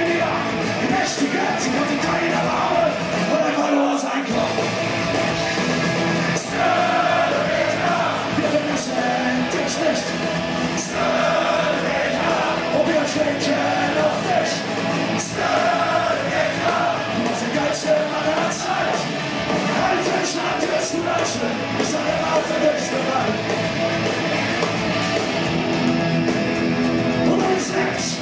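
Punk rock band playing live: distorted electric guitars, bass and drums at a driving beat, with a singer shouting the vocals.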